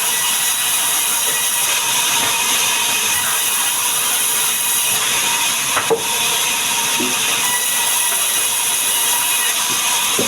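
Sawmill saw running on sengon wood: a steady, loud, hissing noise with a faint whine, and one short knock about six seconds in.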